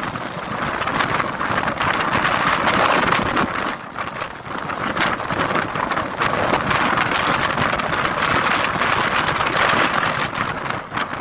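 Passenger train running along the track, heard from an open coach window: steady wheel-and-rail running noise mixed with wind rushing over the microphone, dipping briefly about four seconds in.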